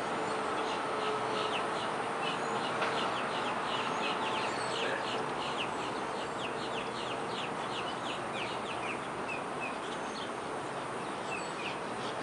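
Birds chirping and chattering in rapid strings of short, quickly falling high notes, busiest in the first half, over a steady outdoor background rush; a steady hum fades out about five seconds in.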